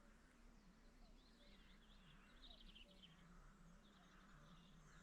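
Faint dawn chorus of small songbirds, many quick high chirps and trills overlapping, over a faint low wavering hum.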